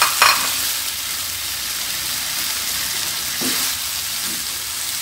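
Chilli sambal paste sizzling in hot oil in a frying pan as a wooden spatula stirs it around whole fried fish. A brief sharp knock of the spatula against the pan comes about a quarter second in, and a smaller one about three and a half seconds in.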